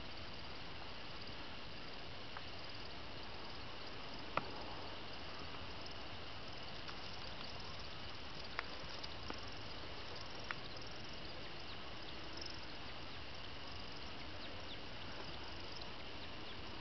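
A steady, high-pitched chorus of calling frogs, with a few faint, sharp chirps or ticks scattered through it.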